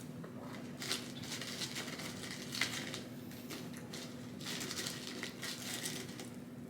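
Close-miked eating sounds: food being chewed and crunched in bursts of crackly noise, with short pauses between them.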